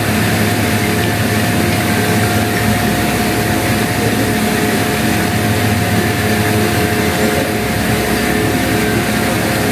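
Electric fan running steadily: a constant motor hum with a thin whine and the rush of moving air.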